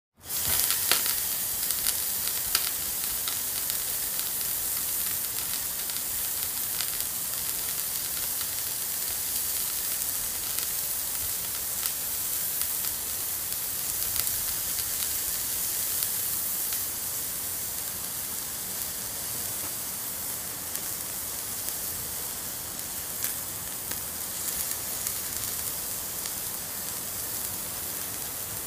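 Marinated meat sizzling over hot charcoal in a wire grill basket: a steady hiss with scattered crackles and pops, most of them in the first couple of seconds.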